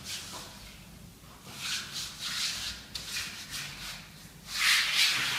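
Hands sliding over and smoothing a pasted vinyl wallpaper strip against the wall, making dry rubbing strokes that get louder about four and a half seconds in.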